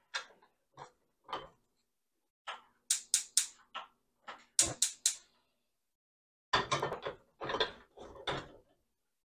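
A metal pressure cooker pot knocking and scraping on a gas stove's grate as it is shifted off the burner and set back down: scattered clicks, a cluster of sharp clinks around the middle, and a longer run of clatter near the end.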